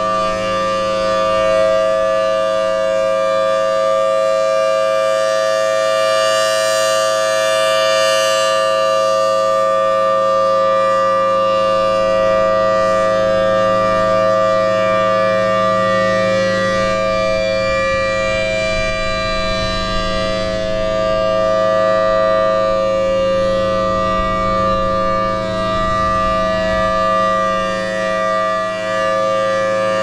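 Federal Signal Thunderbolt 1000T outdoor warning siren sounding its steady alert tone at full pitch, very loud, with the level swelling and easing a little as the rotating horn sweeps around.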